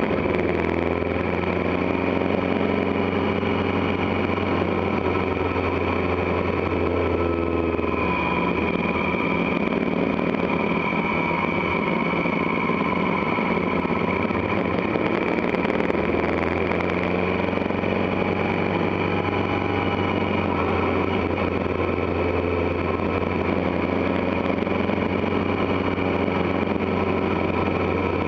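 Motorcycle engine running steadily at road speed, heard from the bike itself, the note shifting for a stretch in the middle before settling again.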